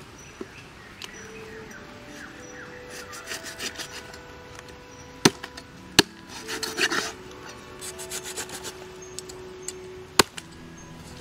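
Cleaver chopping crocodile meat on a wooden chopping block: scraping and rubbing of the blade and meat on the wood, with three sharp chops, two of them close together about five seconds in and one near the end. Faint music plays under it.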